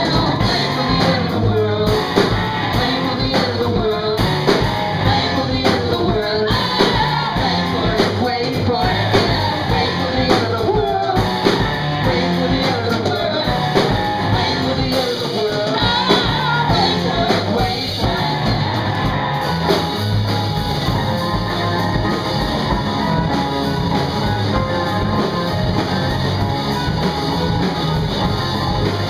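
Live rock band playing: electric guitar, bass and drum kit, with a singer's voice over them.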